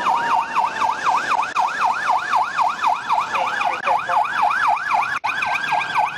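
Police car siren in fast yelp mode, its pitch sweeping up and down about four to five times a second, with a second, slower siren tone gliding underneath. The sound drops out for an instant about five seconds in.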